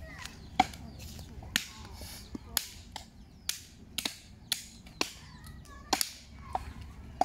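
Meat being chopped with a blade on a wooden chopping block: about a dozen sharp chops at an uneven pace, roughly one to two a second.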